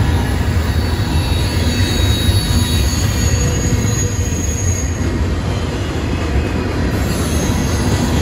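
Norfolk Southern freight train rolling past with a steady rumble of cars on the rails. Thin high wheel squeal rises over it from about two to five seconds in and again near the end.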